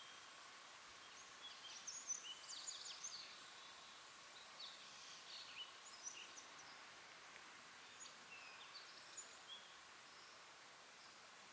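Faint outdoor background hiss with scattered high, thin bird chirps and twitters: a quick flurry about two seconds in, more a few seconds later, and a few sparse notes later on.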